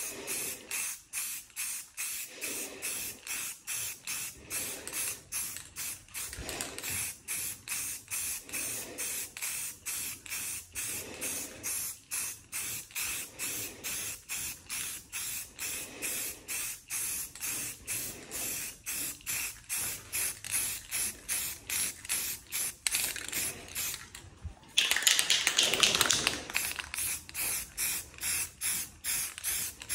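Aerosol spray can of primer hissing in quick even pulses, about three a second, as the can sweeps back and forth over a car's rear wing. About 24 seconds in it stops briefly, then gives a louder unbroken blast for a couple of seconds before the pulsing resumes.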